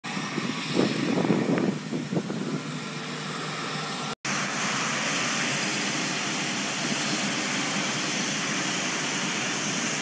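A 4YL-5 combine harvester with its 160-horsepower Yuchai diesel engine running in the field: a steady mechanical drone with uneven low rumbling over the first two seconds or so. The sound drops out for a moment about four seconds in, then the even drone carries on while the machine unloads grain.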